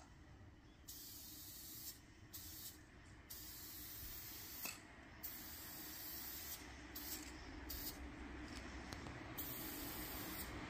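Aerosol spray-paint can hissing in several short bursts, each half a second to a second and a half long with brief gaps, as a graffiti tag is sprayed onto a wall. A low rumble grows near the end.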